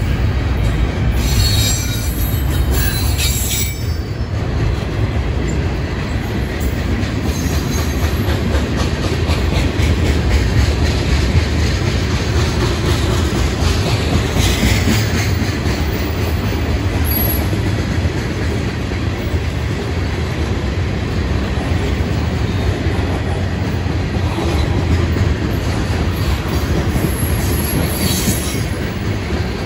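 Freight cars of a long train rolling past close by, first double-stack container cars and then tank cars. Wheels on rail make a steady rumble with clickety-clack, and brief high wheel squeals come a couple of seconds in, about halfway, and near the end.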